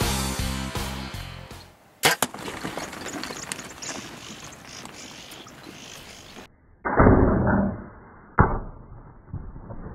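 Compound bow shot at a blesbuck: background music fades out and a sharp snap comes about two seconds in. Later a loud burst of noise and a second sharp snap come from another take of the shot.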